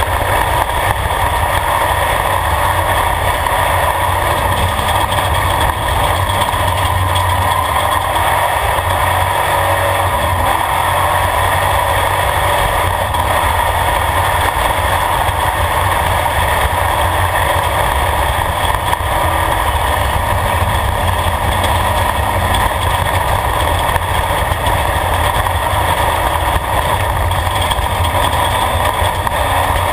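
Off-road race vehicle's engine running hard and steady at speed, heard from inside the caged cockpit, with a constant low rumble from the rough dirt track.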